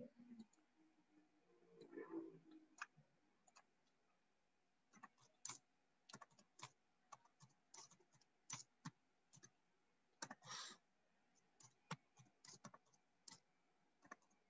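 Faint, irregular computer keyboard keystrokes as numbers are typed in, a few taps at a time with pauses between, starting about five seconds in.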